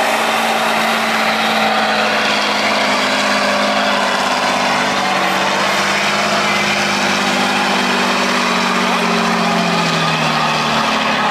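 Tatra 813 trial truck's diesel engine running hard under full load as the truck climbs a steep slope. The revs hold high, then sag near the end.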